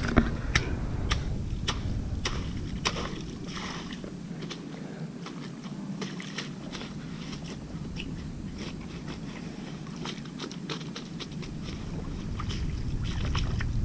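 Irregular crackling and rustling of dry grass and wet mud being worked and trodden underfoot, with many short sharp clicks. A low rumble sits underneath, fading about four seconds in and returning near the end.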